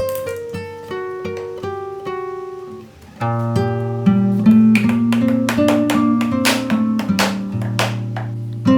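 Background acoustic guitar music: a line of single picked notes, then, about three seconds in, a louder, fuller passage of strummed chords over held bass notes.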